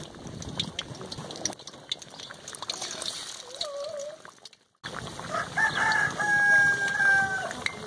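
Potato pakoras sizzling and crackling as they fry in hot ghee in an iron karahi. A rooster crows once, a long held call starting about five and a half seconds in and the loudest sound, with a shorter wavering chicken call a couple of seconds before it.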